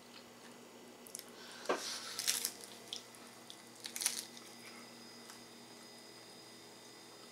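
Bites into a crisp fried corn tostada shell topped with cauliflower and refried beans, crunching: a cluster of sharp crackles about two seconds in and another about four seconds in.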